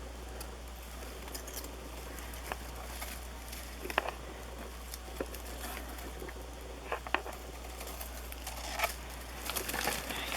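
Dry bird's nest of twigs and grass being handled, giving scattered faint crackles and rustles over a steady low hum.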